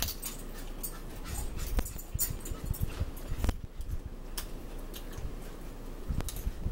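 A pet dog making small sounds, with scattered clicks of a fork on a plate and food tray.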